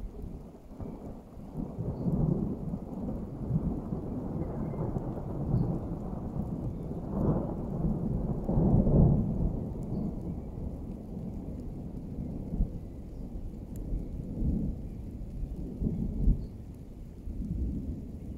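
Rolling thunder from a nearby thunderstorm: a continuous low rumble that swells and fades several times, loudest about halfway through.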